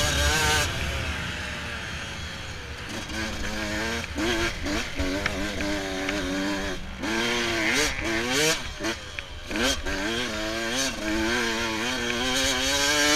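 Yamaha YZ125 two-stroke dirt bike engine being ridden hard, its pitch climbing and falling again and again as the rider works the throttle and gears. The throttle is shut briefly twice around the middle.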